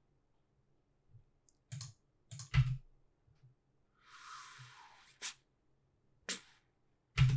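Scattered computer keyboard and mouse clicks, a few separate taps with quiet between them, and a brief soft hiss about four seconds in.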